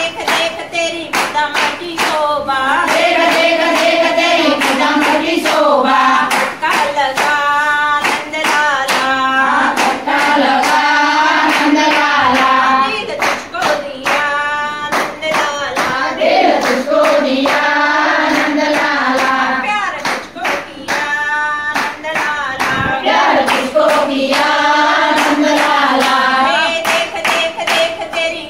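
A group of women singing a Hindi Krishna bhajan together, clapping their hands in a steady beat.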